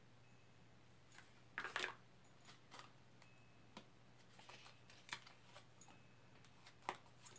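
Tarot cards being handled: scattered soft clicks and rustles of card stock, the loudest cluster a little under two seconds in and a sharp click near the end, over a faint steady hum.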